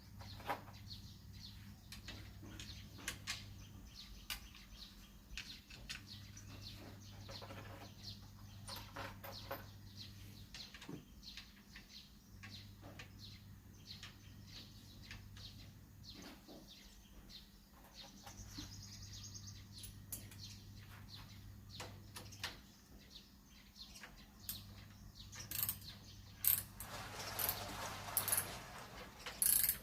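Hand tools working on a motorcycle exhaust pipe: scattered metal clicks and knocks, with a denser run of ratcheting clicks near the end. Birds chirp faintly.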